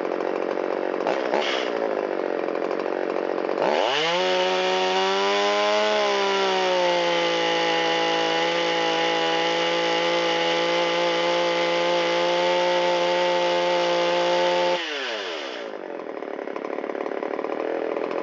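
Shindaiwa 360 two-stroke chainsaw engine idling, then snapped up to a high steady full-throttle whine about four seconds in and held for roughly eleven seconds before dropping cleanly back to idle. The saw picks up promptly off idle and settles back to idle, a sign of a freshly revived engine running properly.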